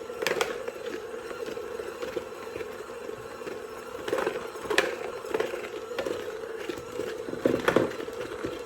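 Garlic-knot dough being kneaded by hand, with sticky squelching and a few sharp slaps against the work surface, over a steady background hum.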